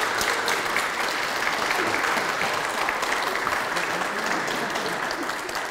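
Audience applauding: steady clapping from a crowd that fades slightly near the end.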